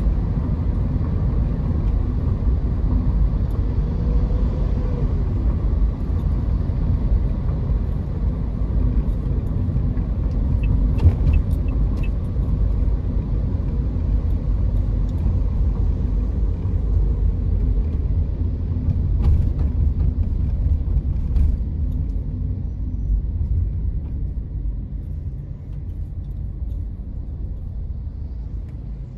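Steady low rumble of a car's engine and tyres on the road, heard from inside the car, with a few faint clicks; it eases off over the last few seconds.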